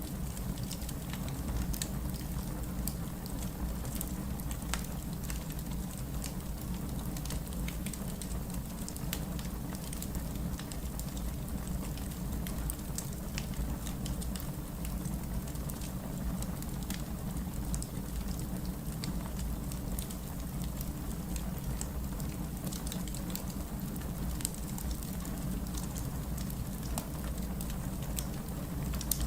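Fireplace ambience: a wood fire crackling, with scattered small pops and snaps over a steady low rumble.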